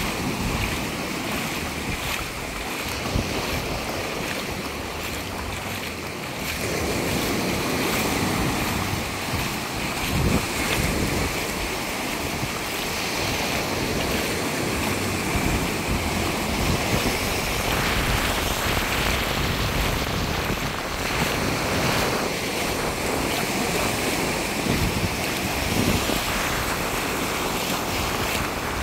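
Small waves breaking and washing up a sandy beach in shallow water, a steady surf hiss, with wind on the microphone adding an uneven low rumble.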